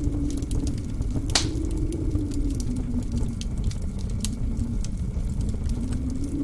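Wood fire crackling, with one louder pop about a second and a half in, over blizzard wind howling and rumbling, its moaning pitch slowly falling and then rising again near the end.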